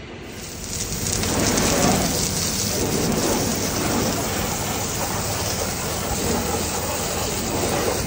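Hose water jet spraying onto a bank of golf-cart batteries and the chassis, a steady spray that sets in about half a second in, rinsing off battery cleaner.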